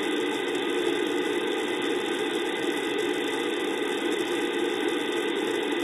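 Steady static hiss from an RTL-SDR receiver in narrow-band FM on 145.800 MHz with squelch off: the ISS downlink carrier has dropped between transmissions, leaving only open-channel noise.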